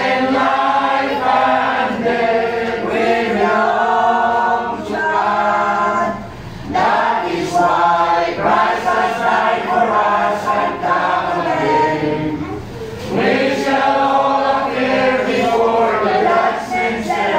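A group of mourners, men's and women's voices together, singing a hymn unaccompanied, pausing briefly between phrases.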